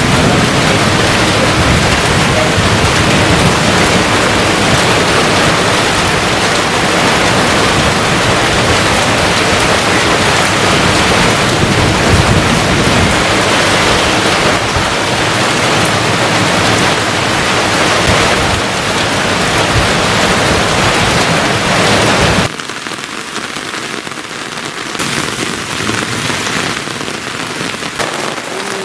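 Heavy downpour: rain falling hard and steadily. A little over three-quarters of the way through it drops suddenly to a quieter hiss of rain with less low rumble, rain pelting a flooded road surface.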